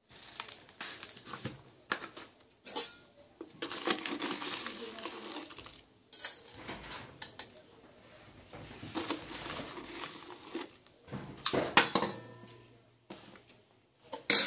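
Steel spoon scraping and clinking against stainless-steel bowls as powder is scooped and tipped from one bowl to another, with a loud sharp clink just before the end.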